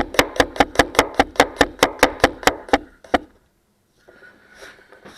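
Forged damascus gyuto chef's knife chopping rapidly on a cutting board, an even run of about five strokes a second that stops about two and a half seconds in, with one last stroke just after. Fainter scraping and rustling follow near the end.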